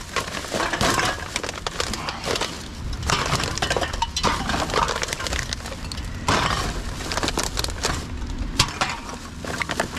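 Aluminium drink cans and plastic and glass bottles clinking and clattering as they are dropped one by one onto a heap of empty containers, with the crinkling of a plastic bag being handled.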